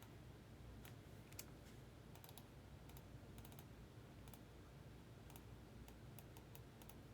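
Faint, irregular clicks at a computer, some single and some in quick small clusters, over a low steady hum.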